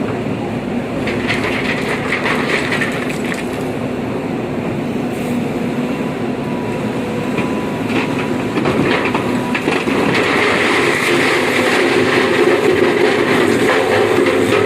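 Heavy diesel dump truck running under load, with a steady engine rumble and continuous clattering and rattling that get louder in the second half.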